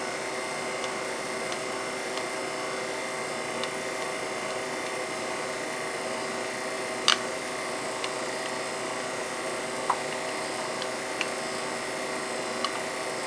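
Steady machine hum with several fixed tones, and a few light clicks of a knife blade against a ceramic plate as a meatloaf is sliced; the sharpest click comes about seven seconds in.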